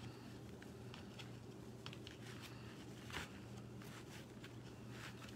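Faint rustling and scattered small clicks of fabric ribbon being worked into a zip tie on a ribbon board, with a sharper click about three seconds in. A low steady hum runs underneath.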